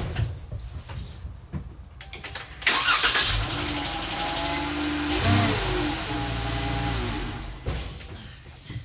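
Dodge Challenger engine, its battery dead from sitting, being jump-started from a portable jump starter: a few light clicks, then about three seconds in it cranks and catches at once, fires right up. It blips briefly and runs steadily, fading out near the end.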